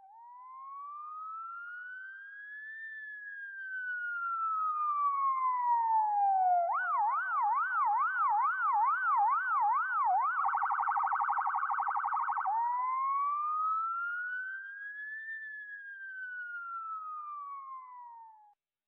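Electronic police siren: a slow rising and falling wail, then a yelp of about two and a half rises a second, a brief much faster warble, and the slow wail again, stopping near the end.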